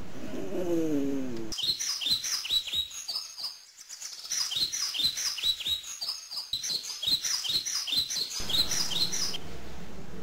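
Small birds chirping, a run of quick high chirps that sweep downward and repeat a few times a second, then stop about a second before the end. Just before them comes a drawn-out voice-like sound falling in pitch.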